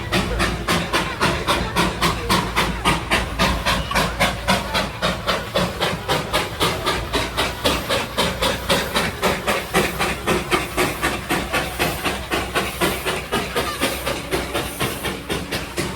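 Darjeeling Himalayan Railway toy-train steam locomotive chuffing steadily, its exhaust beats coming about four to five a second.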